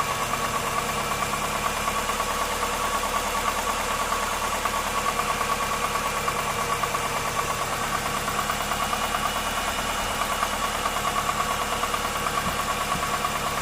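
Subaru Forester's flat-four boxer engine idling steadily with an even pulse, now running properly with the brake booster vacuum line reconnected after a suspected misfire.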